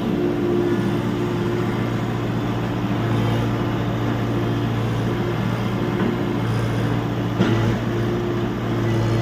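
Excavator diesel engine running steadily, swelling in level a few times as the machine works under load, with one sharp knock about seven seconds in.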